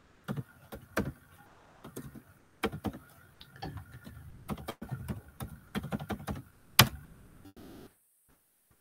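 Computer keyboard being typed on: irregular, uneven keystrokes, with one louder key strike a little before the end.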